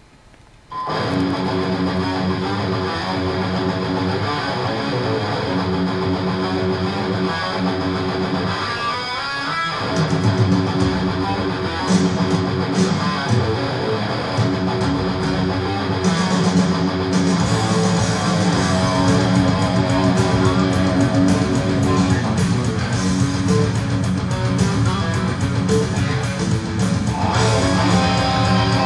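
Background music led by guitar. It comes in about a second in and grows louder about ten seconds in.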